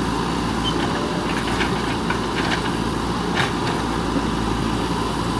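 JCB 3DX backhoe loader's diesel engine running steadily, with a few short sharp knocks between about one and three and a half seconds in.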